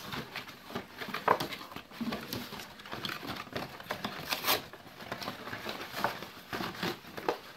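Paperboard soda-carton gift wrapping being torn and crinkled by hand: irregular rustling and ripping, with sharper rips about a second in and again about four and a half seconds in.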